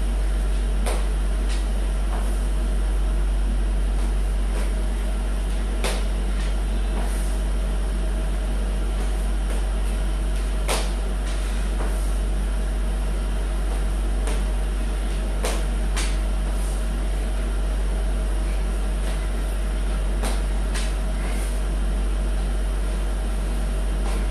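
A steady low hum, with light thuds and clicks every second or few as hands and feet land on a tiled floor during repeated burpees.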